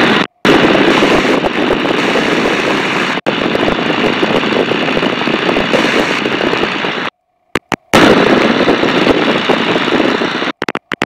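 Wind rush and engine noise in the open cockpit of a de Havilland DH.82A Tiger Moth in flight, its Gipsy Major four-cylinder inverted inline engine running steadily in cruise. The sound drops out completely for a moment near the start, for most of a second about seven seconds in, and again in short breaks near the end.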